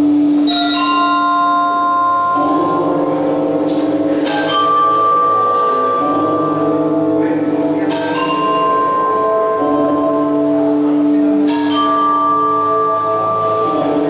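Music of slow, bell-like notes, a new note struck about every two seconds and each ringing on under the next.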